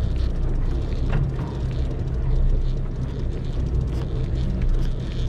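A fishing reel being cranked, bringing a fish up from deep water, its gears clicking steadily over a constant low drone.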